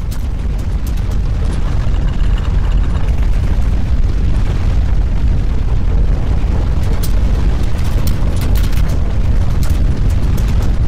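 Loud, steady deep rumbling noise that builds up just before and then holds, with scattered faint clicks and rattles over it.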